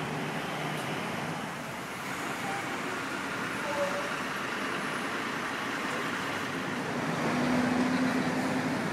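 Steady road traffic noise from a busy street, swelling a little with a low hum about seven seconds in.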